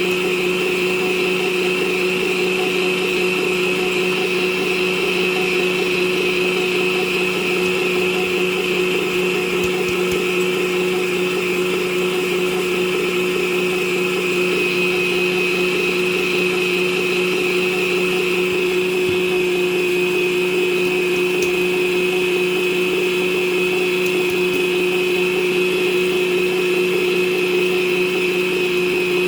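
Electric kitchen mixing appliance's motor running at one steady speed, mixing cake batter, with a constant whine.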